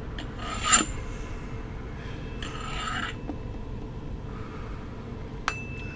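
Song intro made of noise rather than a beat: a low rumbling hiss with two short rasping, scraping swells about two seconds apart. Near the end comes a sharp click, then a steady high beep.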